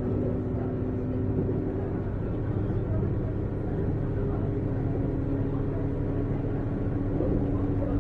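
Running sound of a 455 series express-type electric train: a steady rumble of the train under way, with a few steady humming tones that shift in pitch about two seconds in.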